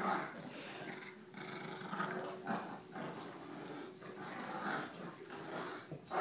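A bulldog and a Yorkshire terrier growling in play during a tug-of-war, in a steady string of short, rough growls with brief pauses between them.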